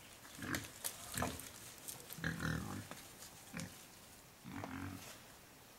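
An animal's short, low calls, about five in a row, with sharp clicks and rustles between them.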